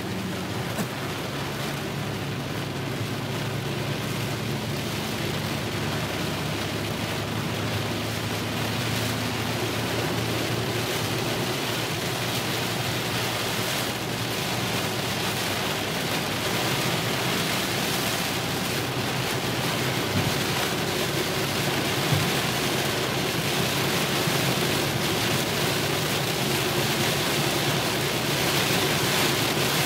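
Heavy rain hitting a car's roof and windshield over steady road and tyre noise, heard from inside the moving car.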